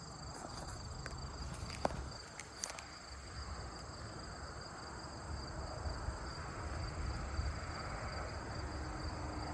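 Steady high-pitched insect chorus, with a few faint ticks about two seconds in.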